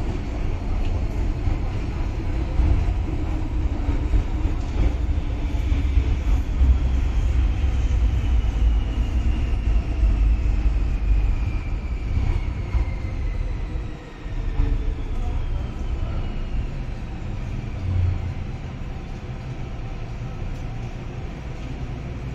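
Metro-Cammell M-Train electric multiple unit heard from inside the car: a heavy rumble of wheels on track, with a high whine that slides steadily down in pitch, typical of traction motors as the train slows. The rumble eases in the last third.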